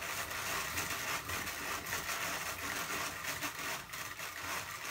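Hand-cranked drum carder turning steadily, a continuous whirring rattle of its drums and wire carding teeth as wool is carded.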